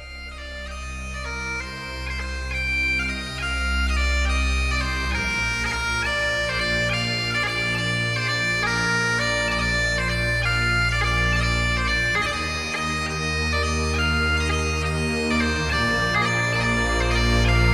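Background music: a sustained melody on a reedy wind instrument, in the manner of bagpipes, over long held bass notes that change every few seconds.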